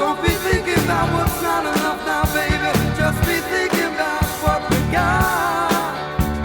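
Pop music with a steady drum beat, about two beats a second, under a wavering melody line.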